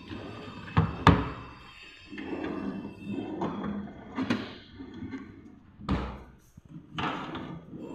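Several sharp knocks and thuds, the loudest about a second in and others near six and seven seconds, over steady background music.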